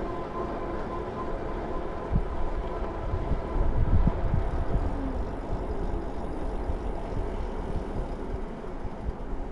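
Wind buffeting the microphone and tyres rolling on asphalt as an electric bike rides along, with a faint steady whine from its motor. The rumble grows louder and bumpier about two to four seconds in.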